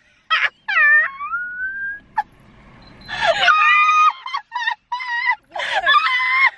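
Young women laughing hysterically: high-pitched squealing laughs, a thin rising wheeze about a second in, then a run of short laughing bursts in the second half.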